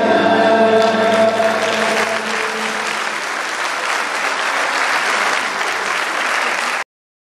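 A mixed choir's last held chord dies away over the first two seconds or so as audience applause swells. The applause runs on steadily and cuts off suddenly near the end.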